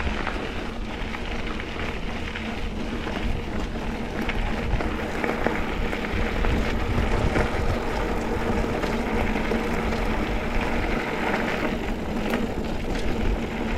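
Mountain bike rolling along a dirt double-track trail: steady tyre and riding noise with wind rumbling on the microphone and occasional sharp clicks and rattles.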